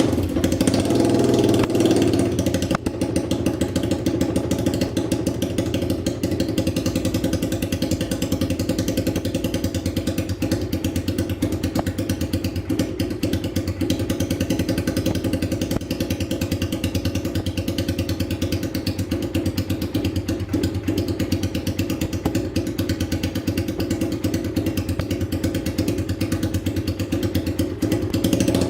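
Triton 450 supermoto engine running with no exhaust fitted: a loud, rapid, even firing pulse straight from the open port. It runs a little higher for the first two seconds after starting, then settles to a steady idle.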